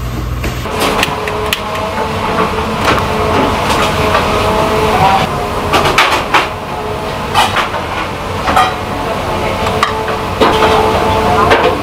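Kitchen clatter: a ladle and a stainless steel bowl clinking and knocking over and over as beaten egg is scooped up and poured out for a rolled omelette.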